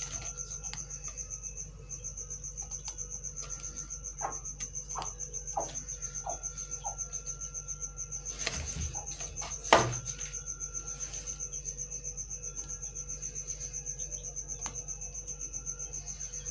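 A cricket chirping in a steady, high-pitched pulsing trill, with a few faint knocks of strawberries being handled in a plastic basket and one louder thump about ten seconds in.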